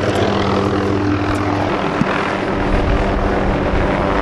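Low-flying helicopter, its rotor and engine running steadily and loudly.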